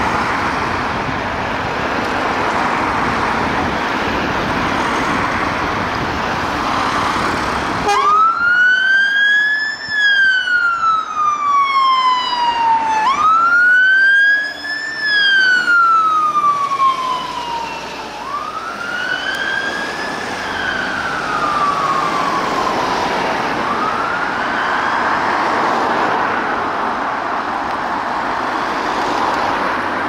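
Fire engine siren coming on about eight seconds in with a wail that sweeps up and falls slowly in cycles of about five seconds, growing fainter over the last cycles as the appliance moves off. Before it, a steady rushing noise.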